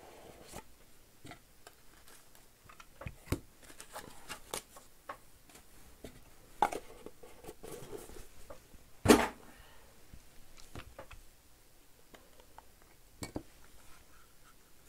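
Hands opening and handling a trading card box and its packaging: scattered light taps, rustles and clacks, with one sharper knock about nine seconds in.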